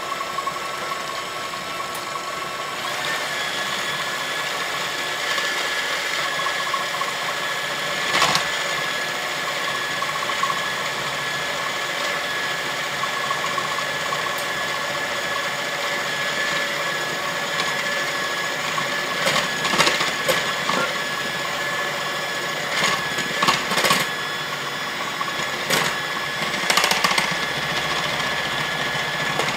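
KitchenAid electric hand mixer running steadily, its wire beaters whirring through a liquid egg-yolk, sugar and cornstarch base for pastry cream. Its motor hum steps up in pitch about three seconds in. A few brief clicks and knocks come through in the second half.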